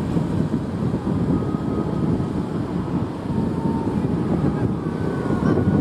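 Low, steady rumble of wind buffeting the microphone, with faint thin whining tones from machinery.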